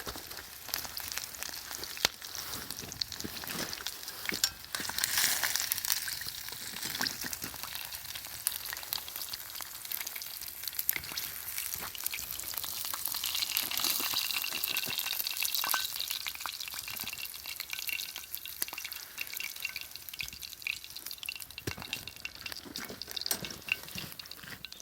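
Meat sizzling over a wood fire: a steady hiss with many small spitting crackles, swelling twice, about five seconds in and again around the middle.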